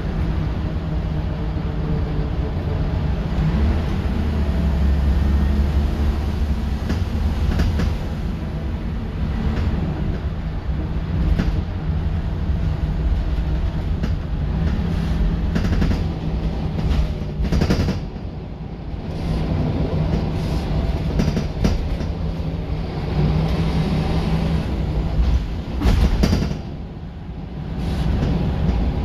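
Scania L94UB bus heard from inside the saloon while driving: the rear-mounted diesel engine runs steadily, its note rising and falling, with rattles and knocks from the bodywork and fittings. The loudness drops briefly twice, once past the middle and again near the end.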